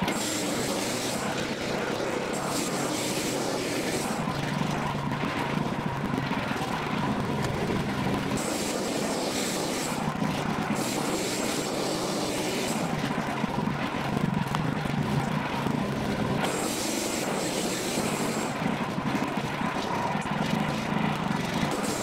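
Wood-Mizer LX55 portable bandsaw mill running steadily while its band blade cuts lengthwise through a log, with a high hiss that comes and goes several times.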